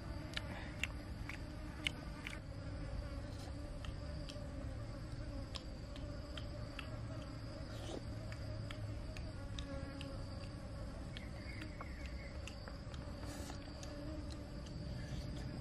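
Steady high chirring of insects, with scattered small clicks and smacks of someone chewing.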